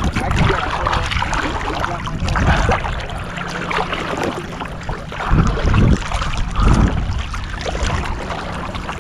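Water sloshing and splashing close around a camera held at the waterline as a person wades holding a large fish, with wind on the microphone; heavier surges of splashing about five and a half and near seven seconds in.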